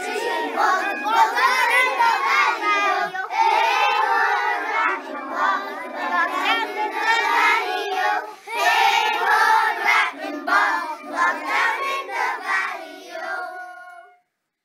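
A group of young children singing together, with a tin whistle playing along; the singing trails off and stops near the end.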